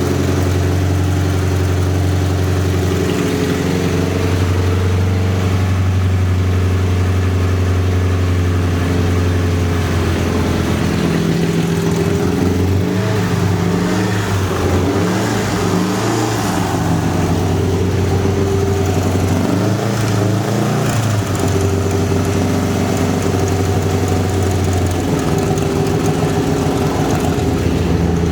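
Subaru EJ208 flat-four engine running steadily, its speed wavering up and down through the middle stretch before settling again.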